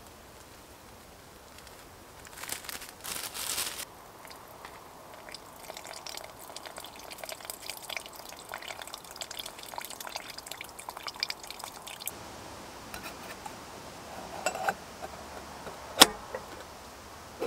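A plastic bag crinkles as ground coffee is tipped into a metal camping mug. Then hot water runs from the wood stove's water-tank tap into the mug for several seconds, and near the end there is a sharp click as a plunger coffee-press lid is fitted.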